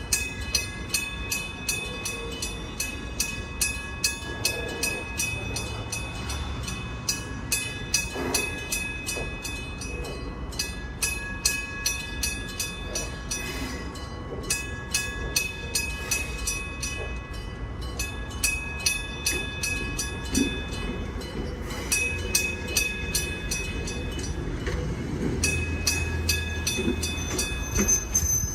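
Japanese railroad crossing warning bell ringing steadily, about two strikes a second, over the low rumble of a passing train.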